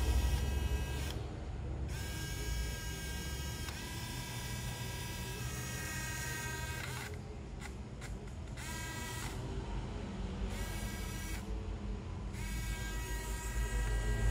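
The robot's small DC wheel motors whine as the wheels spin freely, stopping and starting again a few times as a hand in front of the ultrasonic sensor triggers the robot's obstacle stop.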